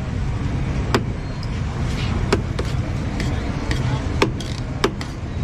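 Irregular sharp clinks, about eight, of a serving utensil and plates knocking against a large steel pulao pot and ceramic plates as rice is scooped out. A steady low rumble of street noise runs underneath.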